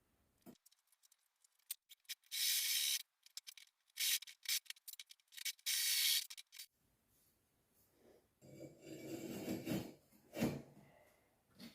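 Three short scraping bursts about a second long, spaced over a few seconds, then a longer, lower scrape and a single sharp knock.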